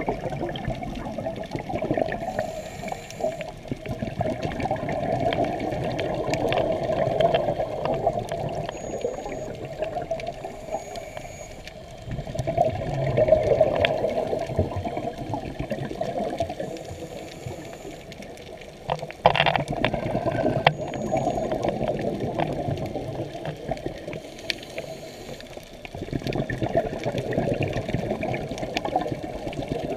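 Underwater bubbling from a scuba diver's exhaled breath, swelling and fading every few seconds with each breath, with one short sharp squeak about nineteen seconds in.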